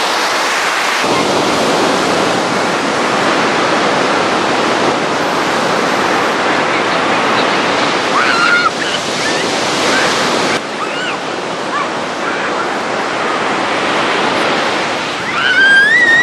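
Ocean surf breaking and washing up a sandy beach, a steady loud rush, with wind buffeting the microphone. The rush changes abruptly about a second in and again past the middle, and a few brief high cries rise over it near the middle and at the end.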